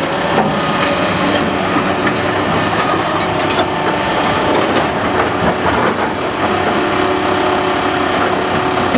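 Loud, continuous mechanical noise with clicking and rattling.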